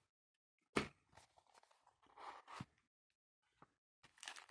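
Faint handling of a cardboard knife box being opened: a sharp knock about a second in, then soft scraping and rustling with a small click near the end.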